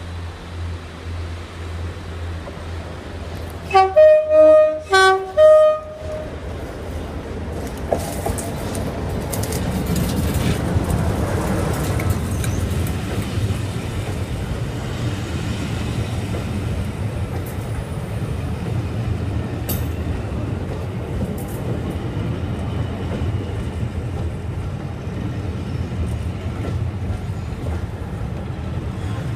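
Diesel locomotive's two-tone horn sounding several short blasts, alternating high and low notes, as it approaches. Then the low rumble of the locomotive and its coaches rolling past, growing louder and staying steady.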